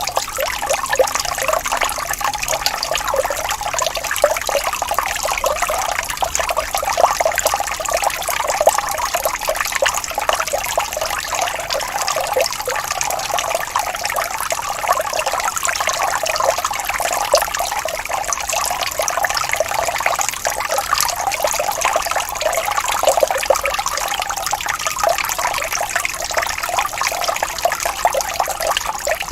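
Water falling and splashing steadily, a dense continuous patter of small splashes with little deep rumble.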